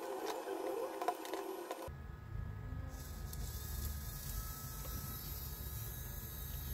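A few faint clicks of wires and clips being handled, then, from about two seconds in, a low uneven hum from a small DC gear motor turning slowly on a little current through the transistor circuit.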